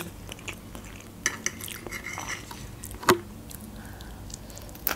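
Metal fork clinking and scraping against a frying pan while picking up fried egg, with a sharp clink about three seconds in and another near the end, and soft mouth sounds of biting.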